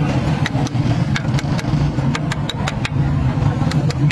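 An engine running steadily with a low drone, with scattered sharp clicks several times a second.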